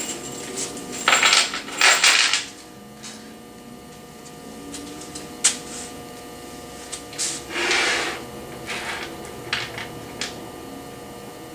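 Loose metal hardware being handled: scattered clinks, taps and rustles of screws and motor-mount parts, loudest about a second and two seconds in and again near eight seconds, over a faint steady hum.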